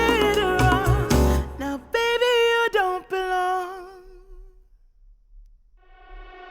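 Pop song played back through Audeze MM-500 planar-magnetic headphones and picked up by microphones at the earcups: a sung vocal line over the band, ending about three seconds in with one held, wavering note that fades out. After a brief gap, the next track fades in with a steady sustained chord.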